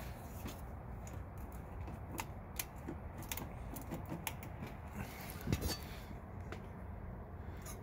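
Scattered small clicks and taps of plastic and metal as a two-pole main breaker is handled and pressed onto the bus of a breaker panel, with a duller knock a little past halfway, over a low steady background hum.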